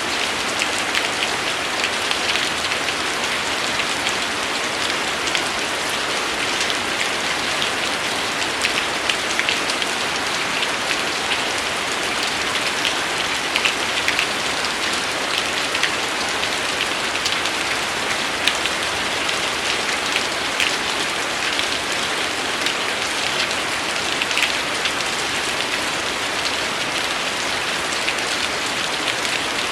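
Steady rain falling: a dense, even hiss with many distinct drop ticks spattering through it.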